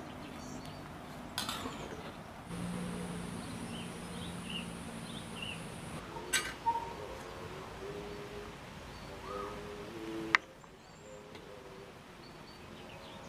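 Birds chirping in short calls, with a few sharp clicks and knocks, the loudest one about ten seconds in.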